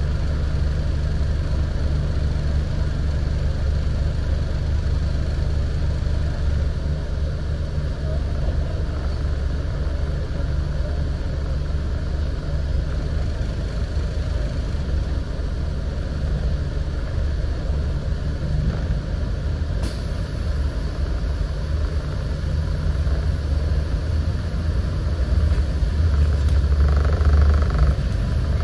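Scania N94UD double-decker bus's five-cylinder diesel engine running with a steady low drone, swelling louder over the last few seconds.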